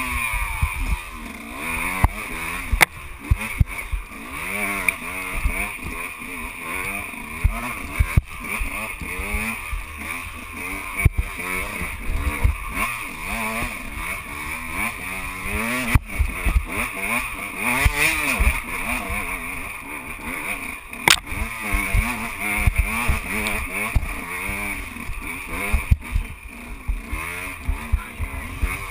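KTM 125 EXC two-stroke enduro motorcycle engine revving up and down over and over, with sharp knocks now and then.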